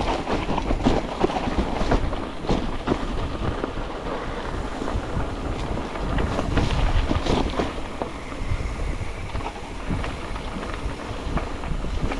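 Wind rushing over the microphone, with frequent short rattles and knocks mixed in.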